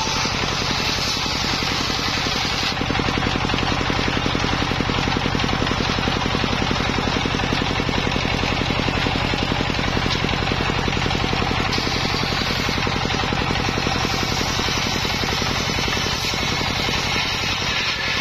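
Engine-driven homemade circular saw running with a fast, even pulsing while its blade rips lengthwise through a petung bamboo stem. The hissing cutting noise is strong at the start, fades for several seconds, and returns about twelve seconds in.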